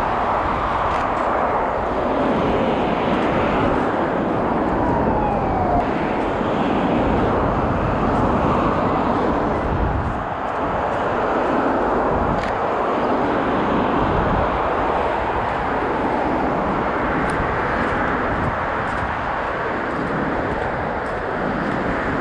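Steady traffic noise from a multi-lane highway below, swelling and fading every few seconds as cars pass, with a few faint clicks.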